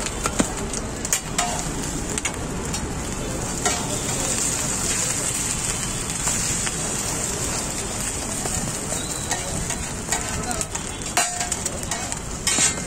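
Beaten egg and oil frying on a large flat iron griddle, a steady sizzle, with now and then the click and scrape of metal utensils on the iron.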